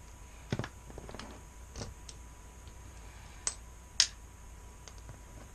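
Scattered small clicks and ticks of a Torx driver and the ratchet being handled while the Torx fastener is undone from the bottom of the ratchet head. The sharpest click comes about four seconds in.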